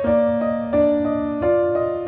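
Background music: a gentle piano melody with notes changing every third of a second or so.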